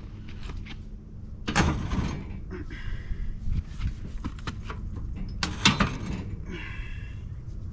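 Steel lever and log-handling gear on a portable sawmill clanking and creaking as a large pine log is levered on the mill bed, with two louder knocks about a second and a half and five and a half seconds in.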